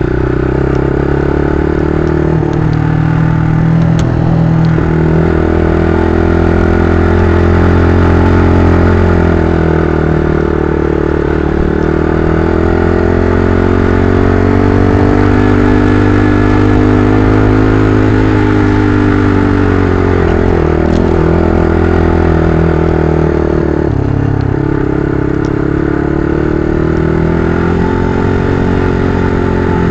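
Mitt scrambler motorcycle engine running while ridden off road, its revs rising and falling repeatedly with the throttle.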